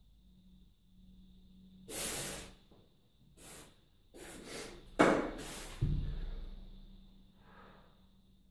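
A man breathing hard in a series of loud puffing exhales after heavy kettlebell thrusters, the sharpest about five seconds in. Just after it comes a heavy, low thud as two 44 kg kettlebells are set down on a carpeted floor.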